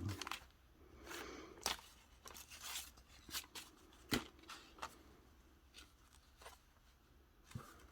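Paper and card being handled: scattered soft rustles with a few sharper taps and clicks, the clearest about two and four seconds in.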